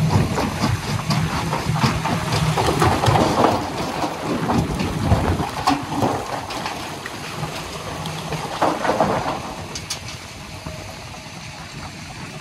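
Rock and soil sliding off a tipping tractor trailer into a jaw crusher's steel feed hopper, a continuous rattle of stones with many knocks, over the steady running of a diesel tractor engine. The pouring eases off about ten seconds in.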